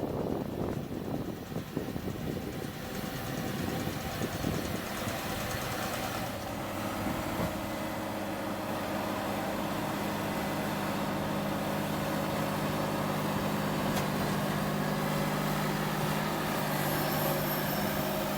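Massey Ferguson 5610 tractor engine running steadily, after a rough, uneven noise in the first couple of seconds. Its hum settles in and grows slightly louder toward the end.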